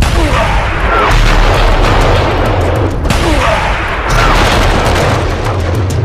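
Loud, dense explosion and gunfire sound effects that run on without a break, swelling and dipping, with a heavy low rumble.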